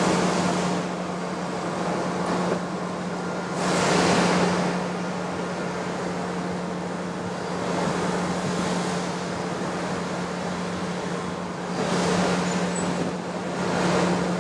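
OD (cylindrical) grinder running: a steady motor hum under a rushing noise that swells and fades every few seconds.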